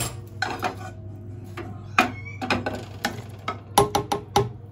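A metal spoon clinking and scraping against a stainless steel mixer-grinder jar as boiled ingredients are spooned in, with a quick run of sharp clinks near the end.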